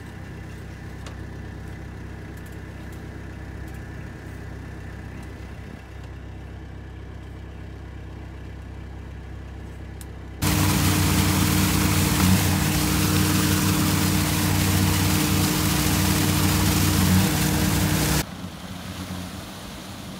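Sherp amphibious ATV's diesel engine idling steadily. About ten seconds in the sound abruptly becomes much louder, with the engine running hard under a rushing noise, and it drops back just as abruptly about two seconds before the end.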